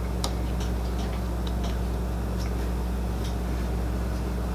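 Steady low hum of room tone with a few faint, scattered clicks from playing cards being handled at the table.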